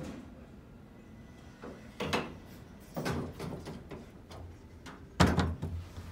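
Passenger elevator's sliding doors moving: a few knocks and rumbles, the loudest just after five seconds in.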